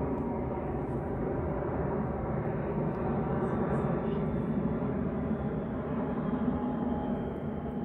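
Steady low rumble of distant engine noise with a faint whine in it, swelling slightly midway and easing near the end.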